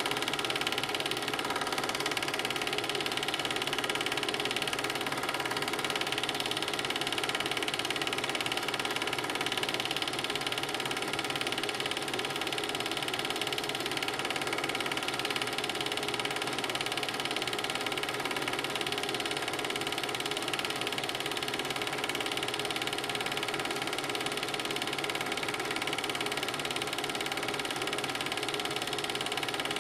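Film projector running steadily: an even mechanical whir with a steady hum.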